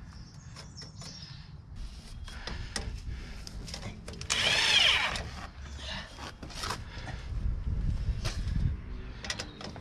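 Power drill run in one short burst about four seconds in, its whine rising and falling in pitch, as the exhaust tip bracket is fastened. Scattered clicks and knocks of tools and parts being handled come before and after it.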